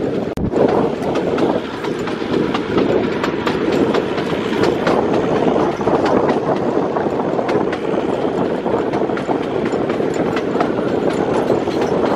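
Narrow-gauge train running, heard from aboard a coach: a steady rumble with wheels clattering irregularly over the rail joints, and a momentary break in the sound just after the start.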